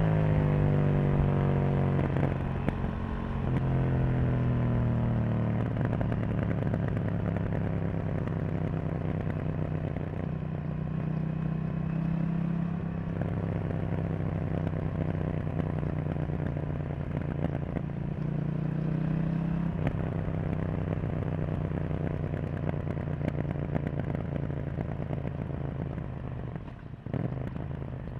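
KTM 790 Duke's parallel-twin engine under way: revs fall over the first few seconds with a gear change, then hold steady at a cruising pace. Near the end the throttle closes and the engine drops back quieter.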